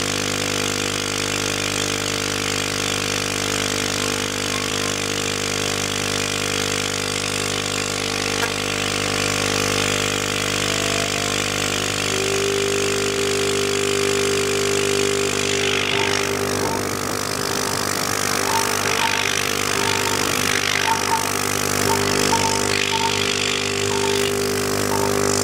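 Cheap 6040 CNC router milling 5 mm aluminium plate: the high-speed spindle and end mill cutting at a 2000 mm/min feed, with the stepper-driven axes moving. A steady whine made of many tones, with a strong new tone coming in about halfway, and the cutting noise turning rougher with small regular ticks in the last third.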